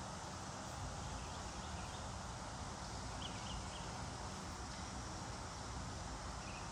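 Steady outdoor background noise, with a few faint short high chirps a little past the middle.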